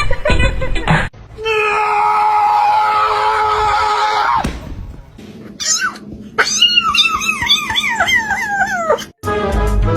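A cat yowling: one long, held cry, then after a short pause a quick run of about eight falling cries. Music plays briefly at the start and comes back near the end.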